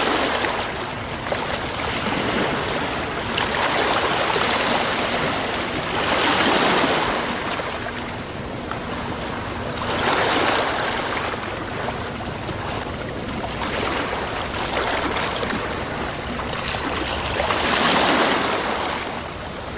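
Sea waves breaking and washing in, each surge of noise swelling and fading about every three to four seconds.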